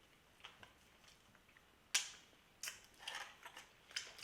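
Faint clicks and rustling from handling food and containers at a table during a meal, with one sharper click about two seconds in and a run of lighter clicks near the end.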